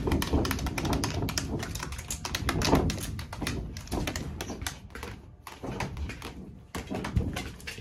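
A Shiba Inu puppy's claws tapping and scratching rapidly against a clear plastic pen panel: a quick, irregular clatter of clicks that thins out in the second half.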